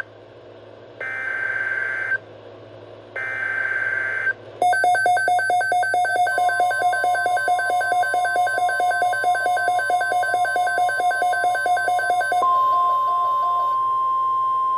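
NOAA Weather Radio alert header: two short bursts of harsh, warbling digital data tones, then a loud pulsing, buzzy alert tone for about eight seconds. Near the end this gives way to a single steady warning tone.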